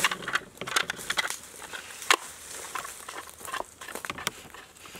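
Irregular clicks, knocks and crackles of hands-on yard work: dry brush and cane being gathered and tools being handled, with one sharper knock about two seconds in.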